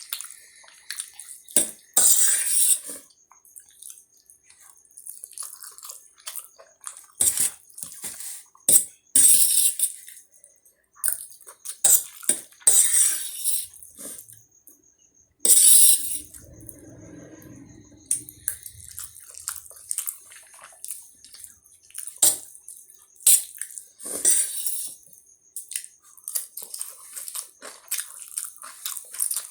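Close-up eating sounds: spicy Maggi instant noodles being slurped and chewed, in many short wet slurps at irregular intervals.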